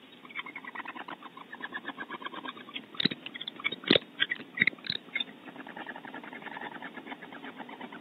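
Barn owl moving about in its tree-cavity nest: a fast run of soft clicks, with a few louder knocks and scrapes between about three and five seconds in as the bird climbs to the entrance and out.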